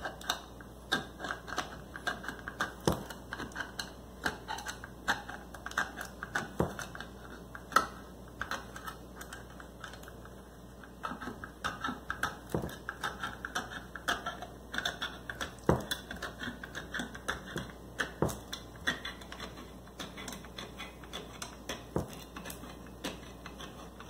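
P51 military can opener cutting around the rim of a steel food can, a run of irregular sharp clicks and crunches as the blade is rocked forward and bites into the lid, with a short pause about halfway through.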